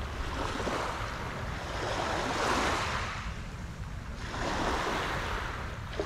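Water washing against the shore in slow swells, rising and falling twice, with a steady rumble of wind on the microphone.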